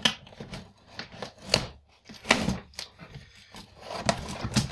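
Cardboard shipping box being handled and opened: a few sharp knocks and scrapes with rustling between them.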